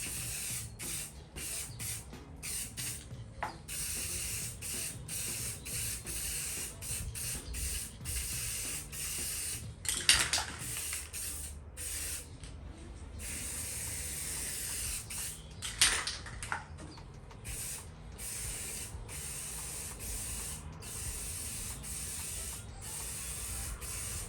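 Aerosol can of satin-black spray paint hissing in repeated bursts, broken by many short pauses. Two louder sharp clatters come about ten and sixteen seconds in.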